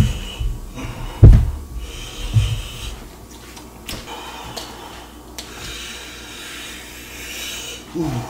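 A cooked goat head knocking and thudding on a cutting board as it is set down and turned over, with several knocks in the first two and a half seconds, the loudest about a second in, then quieter handling sounds.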